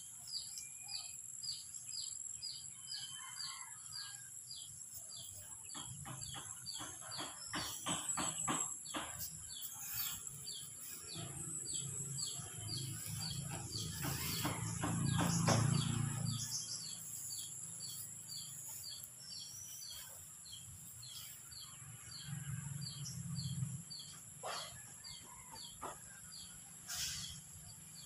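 Rural outdoor ambience: a steady high-pitched insect drone with a short chirp repeating about twice a second throughout. Bursts of crackling rustle come in the first third and again around the middle, where a low rumble makes the loudest stretch.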